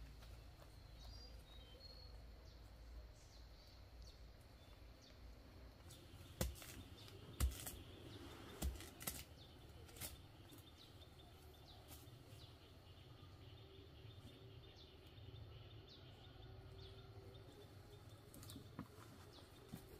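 Quiet background hum with a handful of sharp knocks or clicks about six to ten seconds in, and a few faint high chirps like a bird's near the start.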